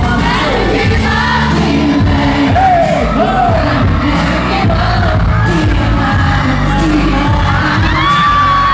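Live K-pop music played loud through a concert PA: a male vocalist sings into a microphone over a bass-heavy backing track, holding a long note near the end.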